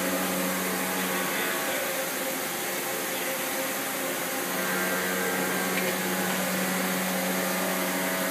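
CNC turret lathe running with a steady mechanical hum and whirr. A steady tone in the hum drops out about a second and a half in and returns about four and a half seconds in.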